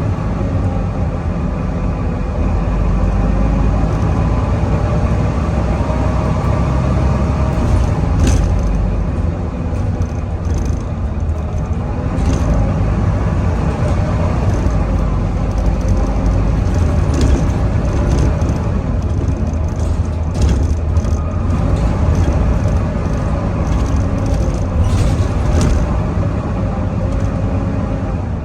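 Volvo B9TL double-decker bus's six-cylinder diesel engine working hard under load, with the whine of its cooling fan, the 'hoover' sound, rising and falling. Sharp clicks and rattles come now and then, more often in the second half.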